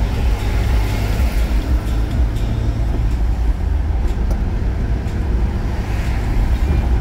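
Steady low rumble of a car travelling at highway speed, heard from inside the cabin: road and tyre noise with the engine underneath.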